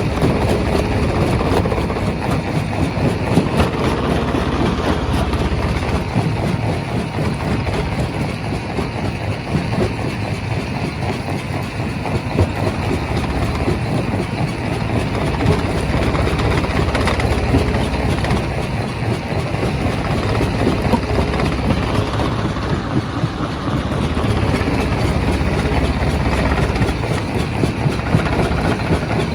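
Primary rock crusher running under load: a steady heavy machinery drone with a continuous, irregular clatter and knocking of stone being broken and tumbling through the machine.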